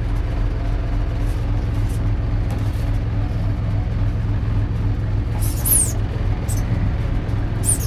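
1978 Bedford TK horse box lorry driving, heard from inside the cab: a steady low engine drone, with a brief high squeak about five and a half seconds in and another near the end.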